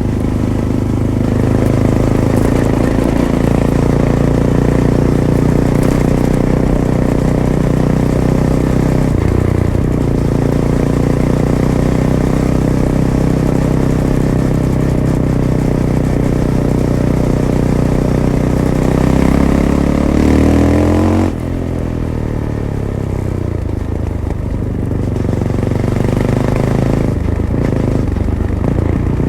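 Fantic Caballero 500's single-cylinder engine with its stock Arrow exhaust, running under way. About twenty seconds in, the revs climb, then drop off suddenly as the throttle closes, and it carries on at lower revs.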